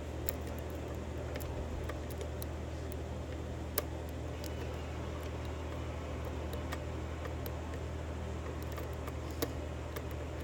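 Faint ticking and scraping of a lock pick working the pins of a Sargent 5-pin cylinder under tension, with two sharper clicks, one about four seconds in and one near the end, over a steady low hum.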